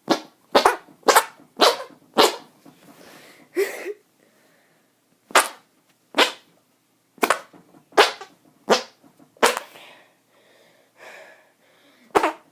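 Arm farts: about a dozen short, sharp, fart-like squelches made by forcing air out with the arm, coming in quick runs of roughly two a second with short pauses between the runs.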